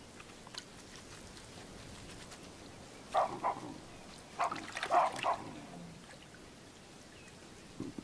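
Animal calls in two short clusters, one about three seconds in and another from about four and a half to five and a half seconds in, over a faint steady background.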